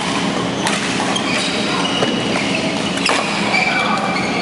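Badminton rackets striking a shuttlecock during a rally: a few sharp smacks about a second apart, with short high squeaks of sports shoes on the court floor.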